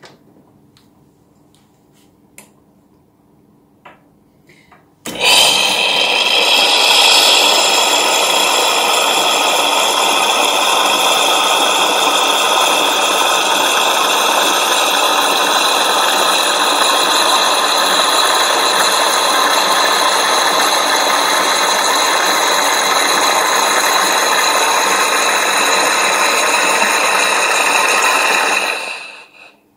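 Oster Prima Latte II espresso machine frothing milk. About five seconds in, its pump and steam wand start abruptly with a loud, steady hissing whine, then stop just before the end, as steamed milk foam pours into the cup.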